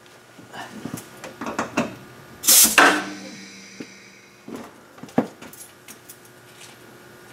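Clicks and clunks of hands working on a CNC mill's tool changer. About two and a half seconds in, a half-second rush of hiss as 90 PSI shop air is let into the changer's pneumatic cylinder. A few more sharp clicks follow.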